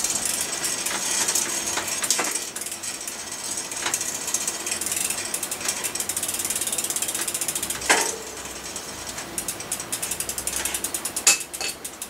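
Mountain bike's rear freewheel ticking rapidly as the rear wheel spins while the cranks are turned by hand during gear adjustment. There is one louder knock about two-thirds of the way through, and the clicks slow near the end.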